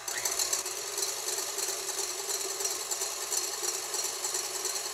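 Stand mixer running on high speed, its motor whining steadily and the wire whisk beating egg whites in a steel bowl; it comes up to full speed right at the start. This is the whipping stage of a marshmallow cream, as hot sugar syrup is readied to stream into the egg whites.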